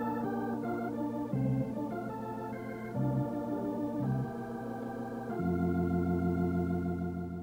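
Organ music: a sequence of sustained chords, settling about two-thirds of the way in on a long held final chord that begins to fade out near the end.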